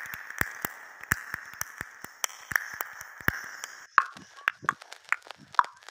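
Irregular sharp taps and clicks of a pen tip on paper over a hard surface, a few every second. About four seconds in, the background hiss drops away and the taps turn shorter and slightly ringing, with a few soft low thuds.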